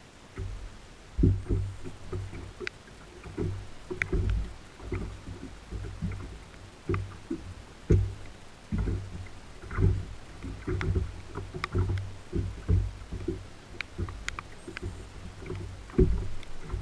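Small waves slapping and knocking against the bass boat's hull in irregular low thumps, a few a second, with scattered sharp ticks.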